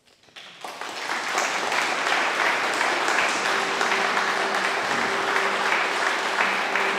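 An audience applauding, the clapping swelling in about half a second in and holding steady. A faint steady low tone comes in under it about halfway through.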